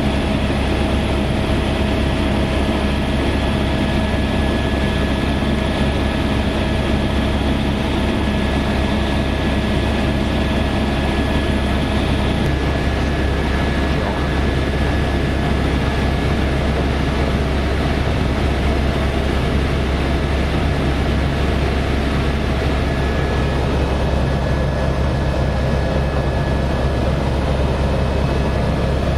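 Helicopter in steady cruising flight: a constant, loud rotor and turbine drone with steady whining tones, heard from inside the cabin. One of the tones drops out about halfway through, and a higher whine comes in near the end.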